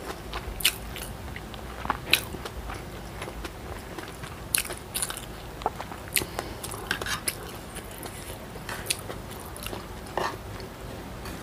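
Close-miked chewing: irregular wet mouth clicks and smacks as a mouthful of food is chewed.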